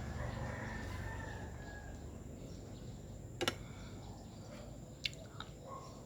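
A rooster crowing faintly in the distance in the first couple of seconds, and two sharp clicks later on.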